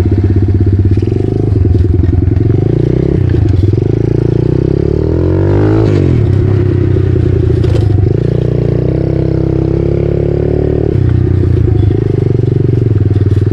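Pit bike's small engine running under way: its pitch climbs with the revs and drops sharply about six seconds in, then climbs again and falls back near eleven seconds.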